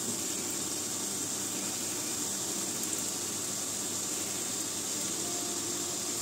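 Doughnuts deep-frying in hot oil in a frying pan: a steady sizzle as they are turned over with tongs.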